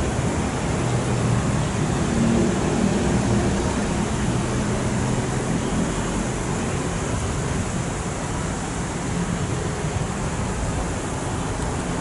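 Steady rushing of water pouring down a stepped fountain cascade, with a faint low hum in the first few seconds.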